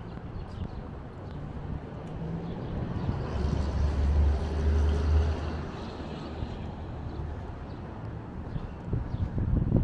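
A motor vehicle's engine passing close, rising to its loudest about three to five seconds in and then fading back to a low rumble.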